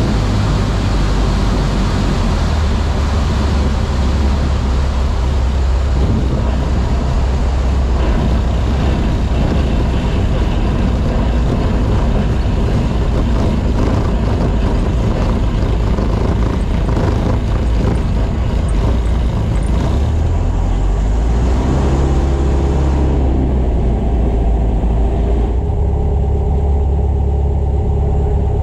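Waiex light airplane's engine idling with the propeller turning, heard inside the closed cockpit while taxiing on the ground. A steady low hum runs under a hiss of wind and rolling noise, which drops away about 23 seconds in as the plane slows.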